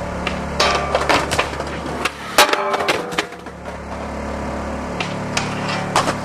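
Skateboard wheels rolling with a steady low rumble, broken by a run of sharp wooden clacks of the board hitting the ground. The loudest clack comes about two and a half seconds in, with a few lighter ones near the end.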